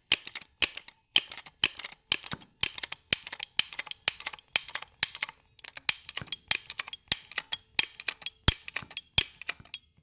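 Ratcheting tube bender clicking steadily, about two sharp ratchet clicks a second, as its handle is pumped to bend 3/4-inch soft copper tube around the bending form to 90 degrees.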